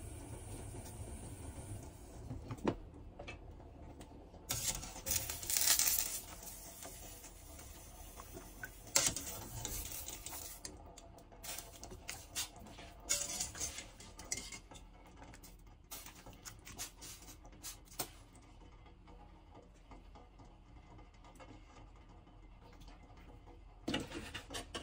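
Wire strainer scooping blanched chicken pieces out of a steel pot of hot water into a steel bowl: scattered clinks and scrapes of metal on metal, with splashing water.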